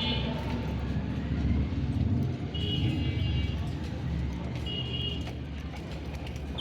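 Baby budgerigar chirping in short buzzy calls, three times, the middle one the longest, over a steady low rumble.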